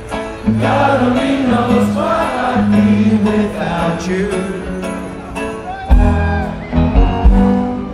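Live band playing an amplified song, heard from the audience: held bass notes and a steady drum beat under keyboards and guitars, with heavier bass drum hits in the last two seconds.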